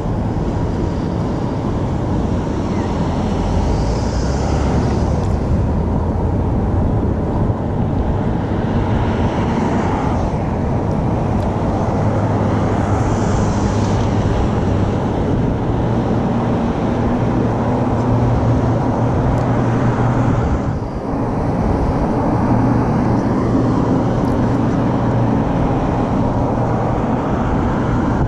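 Steady wind and road rumble from riding an electric bike along a street, with cars swelling past a few times.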